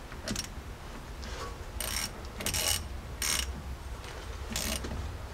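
Ratchet wrench with a 7/16 socket clicking in about five short bursts, tightening the banjo bolt of the brake hose on the back of a front disc brake caliper.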